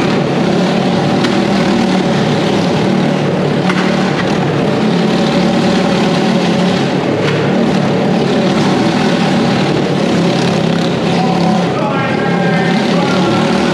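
Several motorcycle engines running together at steady, high revs, loud and continuous, as three bikes circle the wooden wall of death.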